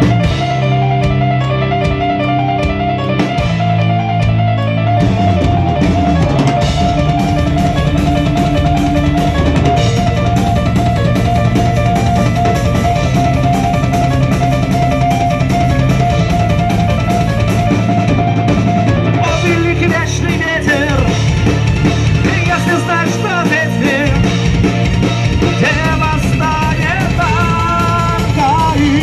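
A rock band playing live with keyboards, electric guitar and drums on an instrumental passage. About two-thirds of the way in, a wavering lead line with bending pitches comes in over the band.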